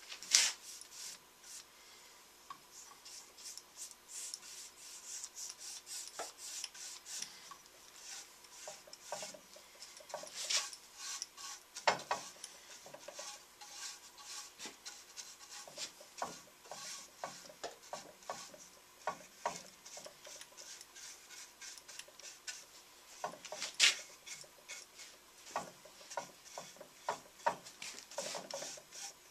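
Paintbrush bristles brushing polyurethane onto a juniper (larch) wooden toolbox: repeated short scratchy strokes, with a few sharper knocks now and then.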